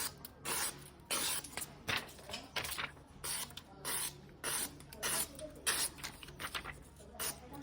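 Suisin ginsan-steel yanagiba blade being stroked by hand across a wet whetstone: a quick, irregular series of gritty scraping strokes, about two a second.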